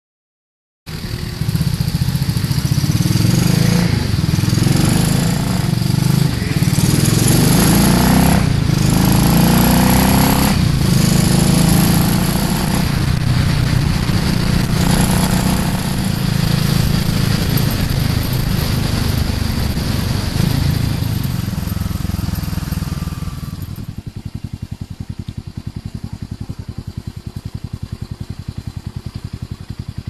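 Motorcycle riding at highway speed, its engine running under load with wind rushing over the microphone. Later the sound drops to a quieter motorcycle engine idling with an even pulse.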